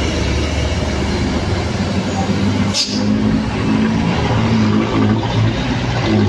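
Hino truck's diesel engine running hard under load at low speed through a hairpin bend, a steady low drone with a brief break near the middle and growing a little louder toward the end.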